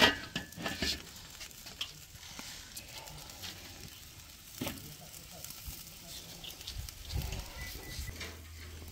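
Steaks sizzling faintly on a charcoal grill, with a few scattered clicks and knocks.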